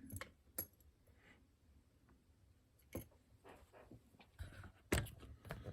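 Faint handling noise: a few sharp clicks and taps of small hard objects being moved, the loudest about three and five seconds in.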